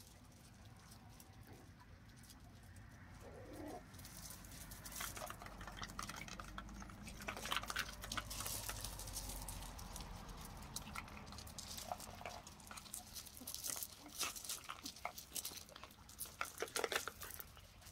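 Terrier puppies scampering and scuffling on gravel, the stones crunching and rattling under their paws in quick irregular clicks. The clicks grow busier and louder after the first few seconds.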